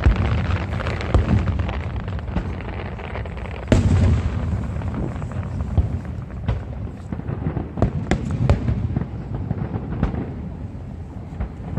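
Aerial fireworks bursting: repeated booms of shells going off with crackling in between, the loudest boom nearly four seconds in.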